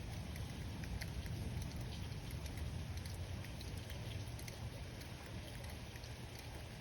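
Rain falling, with scattered drops ticking close by, while a low rumble of thunder slowly fades away.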